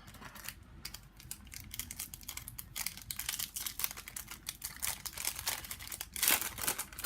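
Foil trading-card pack wrapper crinkling as it is handled and torn open by hand: dense irregular crackling, with a louder rustle about six seconds in.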